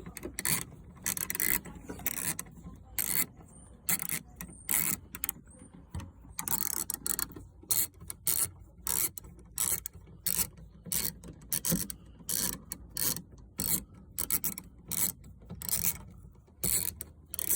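Socket ratchet clicking in short repeated strokes, turning a 5 mm Allen-key socket to undo a bolt behind a car door handle.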